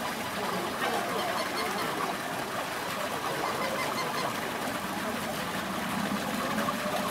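A flock of flamingos honking and chattering, many goose-like calls overlapping in a steady din.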